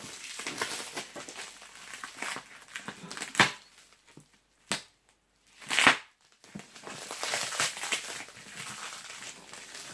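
Plastic wrapping, like cling film, rustling and crinkling as a package is handled and pulled at, with two sharp knocks about three and a half and six seconds in and a quieter pause between them.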